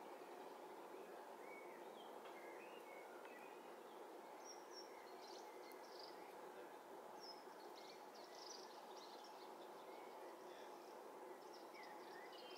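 Near silence: faint, steady background noise with small birds giving short, high chirps and twitters scattered throughout, in small clusters near the middle and end.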